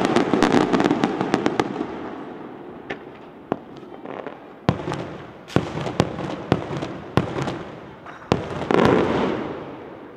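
Fireworks going off: a dense run of sharp crackling bangs, then single loud reports every half second to a second, and a last rapid crackling cluster near the end that dies away.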